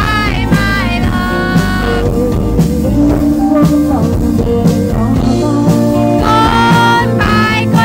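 Live band playing a slow rock song: a singer sings over acoustic guitar, electric bass and drums. The voice carries the first two seconds, the band plays on without it through the middle, and the singing comes back near the end.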